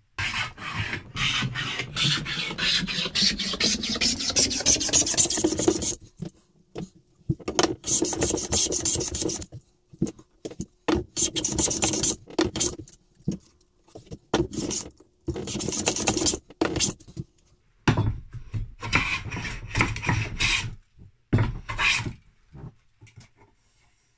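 A hand tool rasping into a beech plane body with rapid back-and-forth strokes as the escapement is cut. One long bout at the start rises in pitch, and several shorter bouts follow with brief pauses between them.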